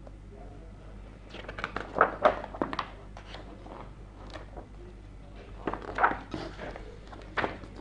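Cardboard board-game components being handled: rustling with light clicks and knocks, in bursts about a second and a half in, around six seconds, and near the end.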